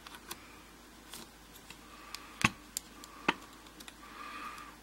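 Light metallic clicks and taps of a small hex key working the grub screw inside a brass padlock body, with two sharper ticks a little past halfway.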